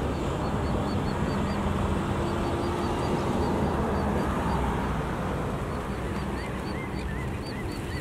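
Steady wind and surf noise on an open beach, with faint, repeated high bird chirps and distant bird calls.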